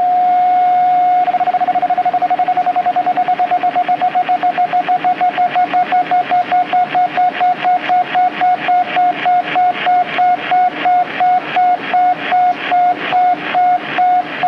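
An electronic tone at one steady pitch, held for about a second, then breaking into even beeps that start very fast and slow steadily to under two a second.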